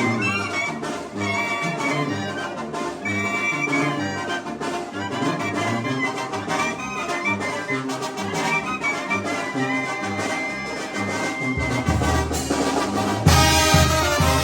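Brass band playing a son azoyuteco, with trumpets and trombones carrying the melody. Near the end a low bass comes in and the whole band plays louder.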